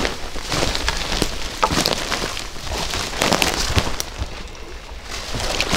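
Footsteps and rustling through dry twigs and forest-floor debris: an irregular crackle of snaps and clicks close to the microphone.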